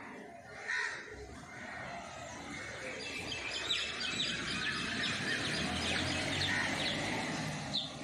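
A flock of house sparrows chirping, many short overlapping chirps that grow denser from about three seconds in, over a steady background noise.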